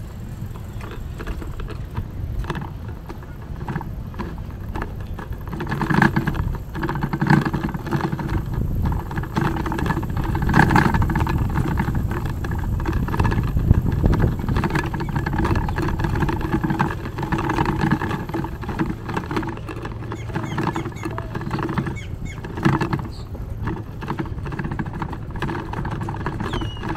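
A Citi Bike share bicycle ridden over a brick paver path, with a constant low rumble of wind on the microphone and frequent rattles and clicks from the bike. The sound is busier and louder through the middle of the ride.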